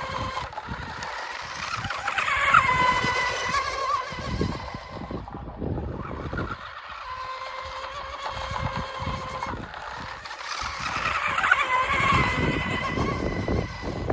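Radio-controlled hydroplane boat's motor running at speed on the water: a steady high whine with overtones that swells and bends in pitch twice as the boat sweeps past on its laps, about two and a half seconds in and again about eleven seconds in.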